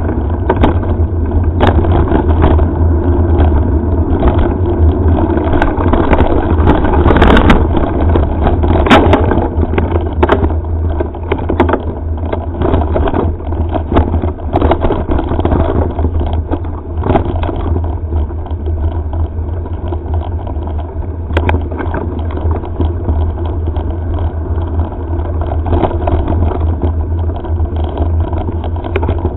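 Steady wind rumble and trail noise on a head-mounted camera's microphone while mountain biking on a gravel forest trail. Many short knocks and rattles come from the bumps, and the noise is loudest a few seconds in.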